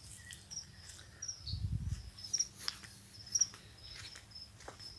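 Small birds chirping outdoors in short, high, repeated notes, with a soft low thump about one and a half seconds in.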